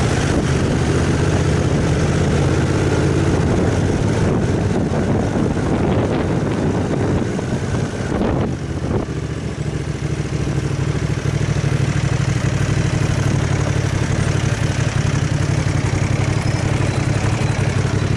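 Aprilia Caponord 1200's V-twin engine running at low road speed, a steady low drone that dips briefly about eight seconds in, then picks up again.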